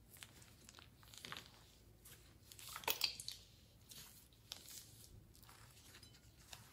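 Plastic piping bag crinkling and rustling as it is squeezed, in short bursts, the loudest about three seconds in.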